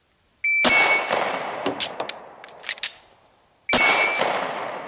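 A shot timer's high beep, then two shots from a 9mm Glock-based PDW about three seconds apart, each trailing a long echo. Between them come a few sharp metallic clicks of an emergency magazine reload.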